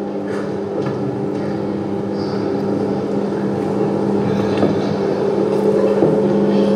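A steady low drone from the soundtrack of undercover pig-farm footage, swelling slowly louder, played over a hall's speakers.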